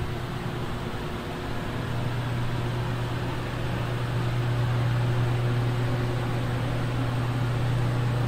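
Steady low mechanical hum under an even hiss, like a running fan or air-handling unit, growing slightly louder about four seconds in.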